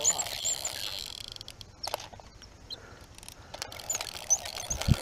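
Outdoor ambience by a pond: a small bird chirping in short, high repeated notes, with scattered faint clicks and one short low thump near the end.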